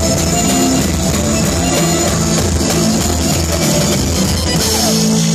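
Live southern Italian taranta band playing through a PA: frame drum, accordion, electric guitar, drum kit and hand percussion. About four and a half seconds in the beat stops and a held chord rings on.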